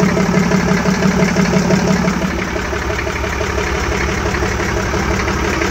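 A vehicle engine idling steadily, with a fast, even beat.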